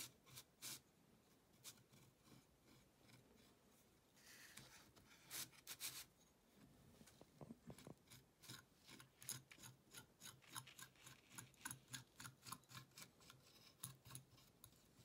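Faint scraping and tapping of a metal palette knife spreading thick gold paint across a painted wooden board, in short strokes that come quicker in the second half, about three a second.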